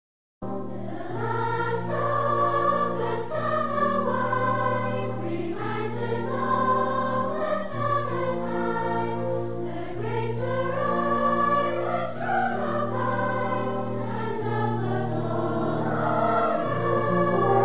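Choral music with a sustained low drone, starting suddenly about half a second in out of digital silence.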